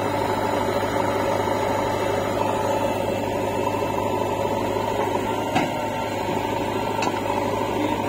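Diesel engines of a JCB 3DX backhoe loader and a Massey Ferguson tractor running steadily close by, an even low drone. Two light knocks sound in the second half.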